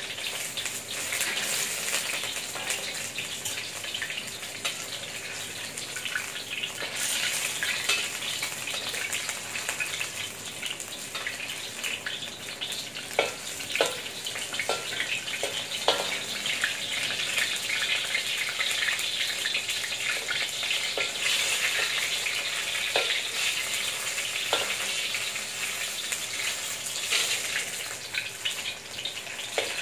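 Battered enoki mushrooms deep-frying in hot oil in a stainless steel wok: a steady sizzle, with a few light clicks of a metal utensil against the wok around the middle and again a little later.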